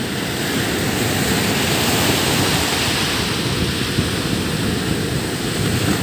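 Surf of a rough sea breaking and washing up a sandy beach, a steady rush that swells a second or two in as a wave comes ashore.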